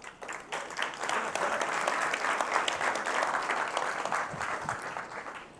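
Audience applauding, building up within the first second and dying away near the end.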